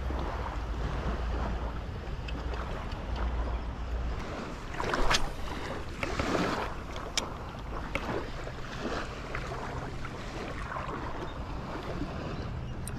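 Wind buffeting the microphone over shallow water lapping around a wading angler, the rumble heaviest in the first few seconds, with two brief splashes about five and six seconds in and a few sharp clicks near the end.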